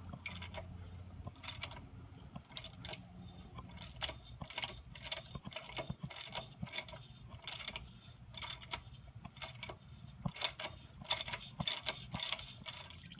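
Ratchet clicking in short irregular runs as it turns an oil filter cap wrench on a long extension, unscrewing a 2010–2015 Toyota Prius's cartridge oil filter housing cap.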